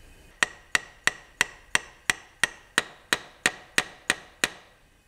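A new valve stem seal being tapped onto its guide in the BMW M70 V12's cylinder head with a metal seal-installer tool: twelve light, evenly spaced metallic taps, about three a second, each with a short ring.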